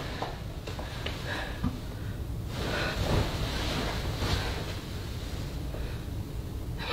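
Soft rustling of a duvet and bed sheets as someone pushes back the covers and climbs out of bed, in swells over a steady low hum.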